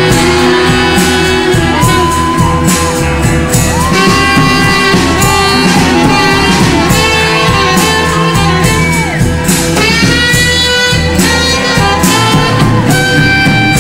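Loud music with a steady beat and a voice singing long held, wavering notes.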